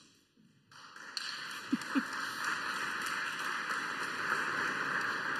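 Congregation applauding, a dense patter of claps that swells about a second in, holds steadily, and begins to fade near the end.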